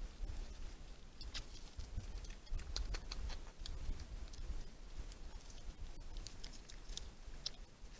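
Small irregular clicks and rustles from a red fox vixen and her cub moving at the den mouth, over a low steady rumble.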